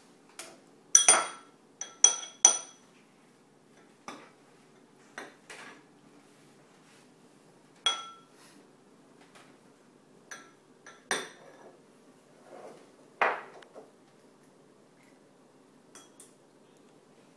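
Spoons clinking and tapping against dishes while the chocolate chia pudding is eaten: scattered, irregular clinks, several with a short ring, the loudest cluster about a second in.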